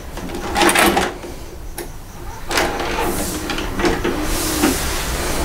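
VHS cassette going into an Audiovox VBP-1000 portable VCR: a run of mechanical clicks and clunks with short motor whirs as the deck loads and threads the tape.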